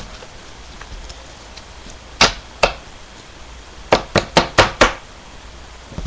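Sharp knocks or taps on a hard surface: two about half a second apart, then a quick run of five within about a second.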